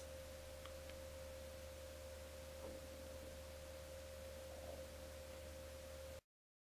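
Faint recording background: a steady thin whine near 550 Hz over a low electrical hum and hiss. It cuts off to dead silence about six seconds in.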